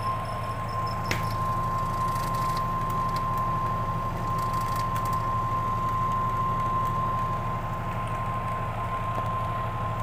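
Washing machine motor running steadily, a low hum with a constant high-pitched whine over it, and a single click about a second in.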